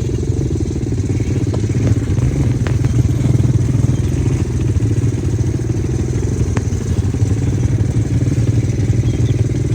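A small ATV engine running steadily at an even speed, with a fast, rough pulse.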